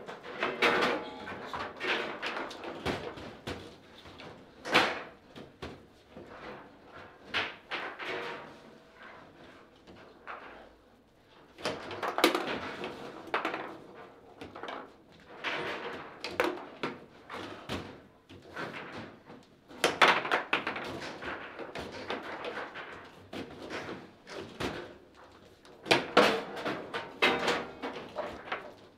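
Table football in play: the hard ball struck by the plastic men, rods sliding and banging against the table, giving irregular sharp knocks and clacks, with a short lull about ten seconds in.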